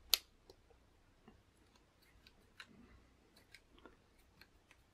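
Small parts of a Shimano XT M785 brake lever being handled and fitted together by hand: one sharp click just after the start, then faint scattered ticks and taps.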